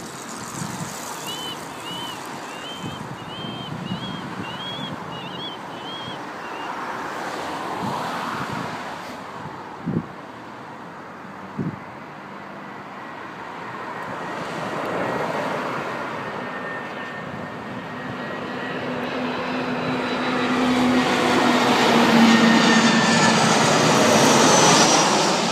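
Airplane engines running as an aircraft comes in to land, growing steadily louder and loudest near the end. There is a run of short, repeated chirps in the first few seconds and two short knocks near the middle.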